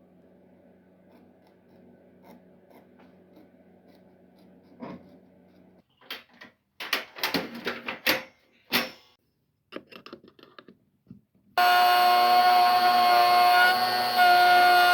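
Woodworking on a wooden hand plane: a run of sharp wooden knocks and taps, then about twelve seconds in a power tool cuts in suddenly and runs steadily with a loud whine.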